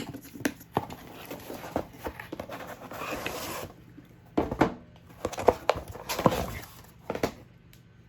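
A cardboard gift box being opened and handled by hand: scattered taps and clicks, a stretch of rustling about three seconds in, then several louder knocks and thumps as the lid and box are moved about.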